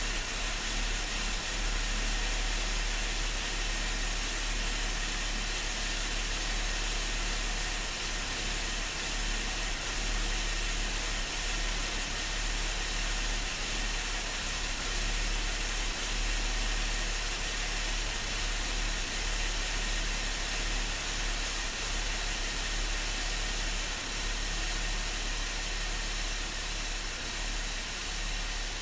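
Chevrolet Traverse's 3.6-litre direct-injected V6 idling steadily while warming up after a cold start. This engine has an intermittent cylinder misfire.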